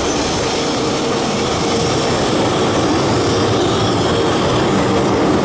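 An arriving express train's locomotive running as it approaches, a steady drone with a constant hum, growing slightly louder.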